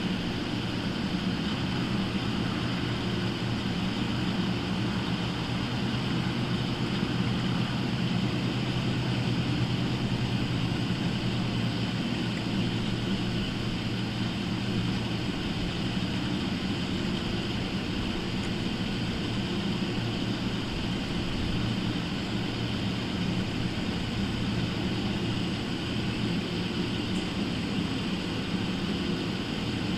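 Steady low machine hum over a constant hiss, unchanging throughout.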